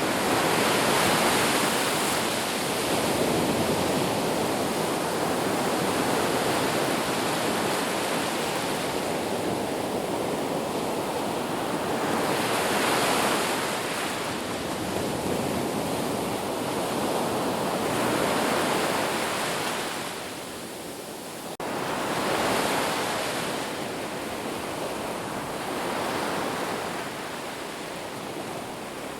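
Sea waves washing on the shore: a continuous rushing surf that swells and falls back every few seconds, with a brief lull about two-thirds of the way through.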